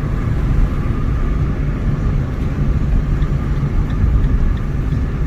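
A moving vehicle's engine and tyres on the road, making a steady low rumble.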